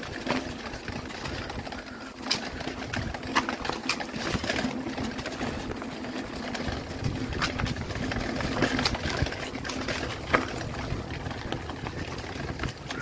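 Mountain bike rolling over a stony dirt trail: tyre noise on gravel and the bike rattling, with sharp knocks as the wheels hit stones several times. A steady low hum runs underneath.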